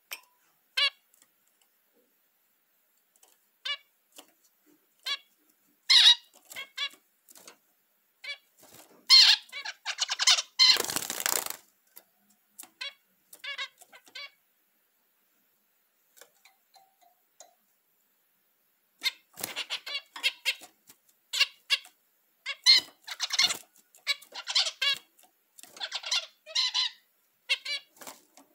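Caged zebra finches calling: many short nasal beeps and chattering song phrases in clusters, presented as their mating calls. A brief rustling rush about eleven seconds in, then a quiet pause before the calling picks up again.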